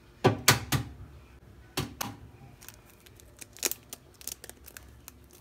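A hen's egg tapped against a stainless steel mixing bowl and cracked open one-handed: a few sharp knocks in the first two seconds, then smaller clicks and crackles from the shell.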